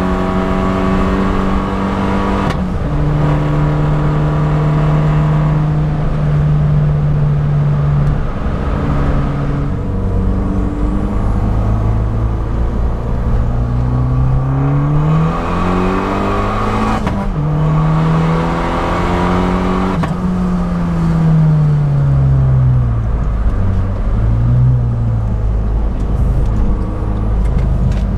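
Abarth 500 esseesse's turbocharged 1.4-litre four-cylinder, fitted with a Garrett 1446 turbo and an aftermarket exhaust, heard from inside the car. It holds fairly steady revs, then pulls with pitch climbing for several seconds, breaks off sharply at a gear change about two-thirds through, holds briefly, and then revs fall away as the car slows.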